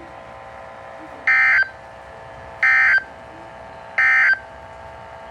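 Three short bursts of Emergency Alert System (SAME) digital data tones, about a second apart, over a faint steady hum. They are the end-of-message code that closes the severe thunderstorm warning just read out.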